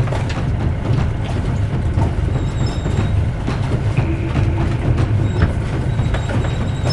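Steady low rumble aboard a sailing yacht under way, with scattered clicks while the furling mainsail's outhaul is hauled out.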